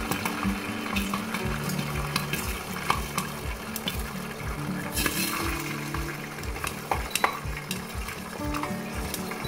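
Moong beans sizzling and crackling in hot oil inside a lidded pot, with scattered sharp pops as they puff up. A soft background music track with a steady beat plays under it.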